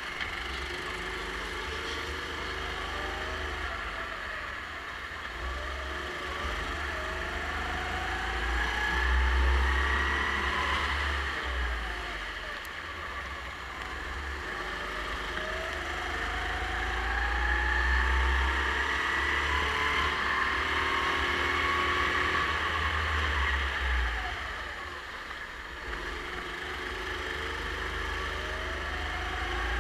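Racing kart's engine heard from the driver's seat, climbing steadily in pitch as it accelerates down each straight and dropping off into the corners, three long pulls in all, over a low rumble.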